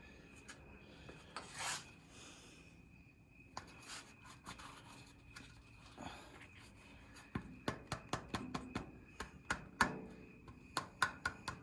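A part being worked by hand: faint rubbing and scraping, then, about seven seconds in, a quick run of light clicks and taps as it is pushed and pulled against metal.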